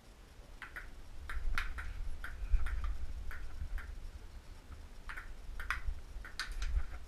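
Table-tennis rally: the plastic ball clicking sharply off paddles and the table, about a dozen irregular hits, over a low rumble.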